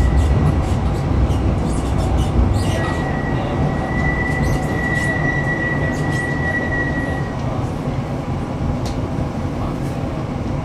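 Tram running on rails heard from inside the car: a steady low rumble with scattered clicks from the wheels. A thin steady wheel squeal sets in about two and a half seconds in, as the tram takes a curve, and stops about five seconds later.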